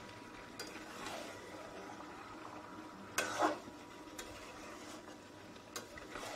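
Spoon stirring a spice mixture in a cooking pot over low sizzling, with a few light clicks and one louder knock of the utensil against the pot a little past three seconds in.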